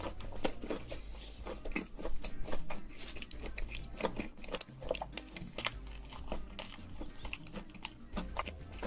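Close-miked biting and chewing of crunchy food: irregular crisp crunches and mouth sounds.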